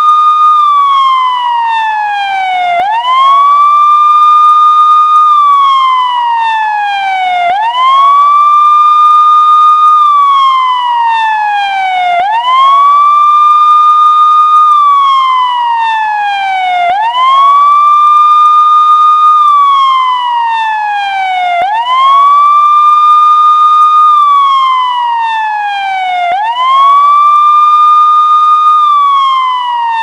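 Loud electronic police siren sounding its wail: the pitch rises quickly, holds for a couple of seconds, then glides slowly back down, repeating about every four and a half seconds.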